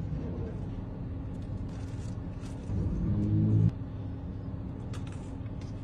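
Steady low rumble inside a car's cabin, with a few faint clicks of a fork working through a boxed dessert. About three seconds in, a louder low humming tone lasts for about a second.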